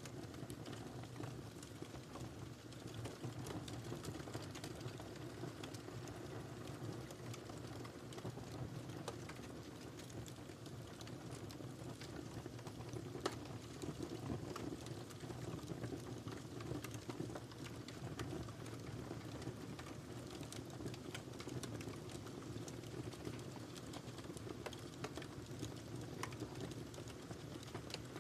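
Wood fire burning in a fireplace: a steady low rumble with frequent small crackles and pops, and one louder pop about halfway through.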